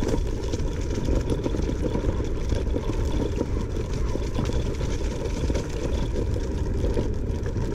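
Langfeite L8S electric scooter ridden over rough off-road ground: a steady low rumble with constant small rattles and knocks.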